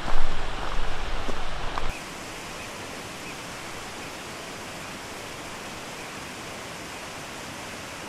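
Mountain outdoor ambience. For about two seconds there is an uneven low rumble like wind on the microphone, then it cuts abruptly to a steady, even rushing hiss.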